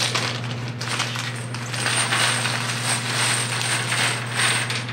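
Small brass nails poured from a plastic baggie onto a wooden workbench and raked about by hand: a continuous light metallic jingling clatter, busiest in the second half.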